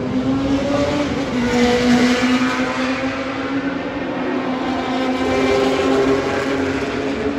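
Several historic Le Mans sports-prototype race cars running past on the circuit, their engines overlapping, with the engine notes shifting in pitch as the cars pass and change gear.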